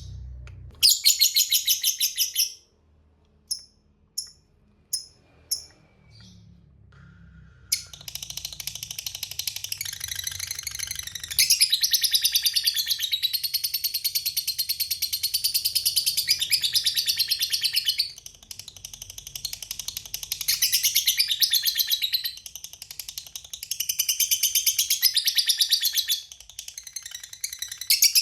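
A lovebird's long 'ngekek' chatter: shrill notes repeated very fast. It opens with a short burst and four single chirps. From about eight seconds in it runs on without a break, swelling louder and easing off in turns.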